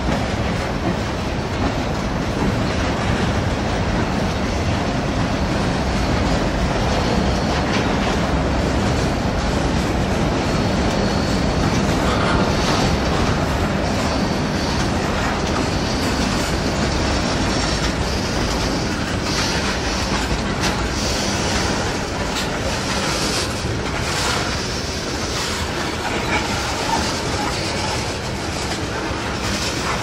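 Freight train's hopper and tank cars rolling past close by: steel wheels clacking over rail joints with a steady rumble. A faint high wheel squeal comes in about halfway through.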